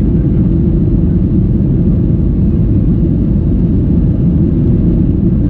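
Cabin noise aboard a Boeing 737-800: a loud, steady, low rumble of the CFM56 engines and airflow, with no single event standing out.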